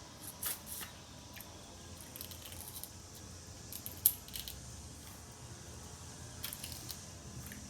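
Snow crab leg shells being cracked and picked apart, with scattered sharp clicks and crackles; the loudest crack comes about four seconds in.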